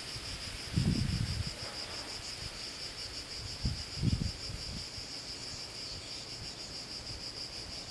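Insects shrilling in a steady, fast-pulsing high drone. Gusts of wind rumble on the microphone about a second in and again around four seconds in.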